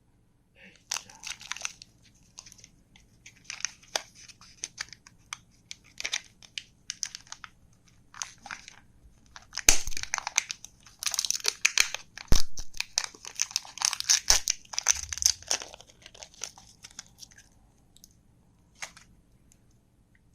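Candy wrappers being unwrapped by hand: foil crinkling and tearing in irregular bursts, busiest and loudest over the middle stretch, with a few sharp clicks.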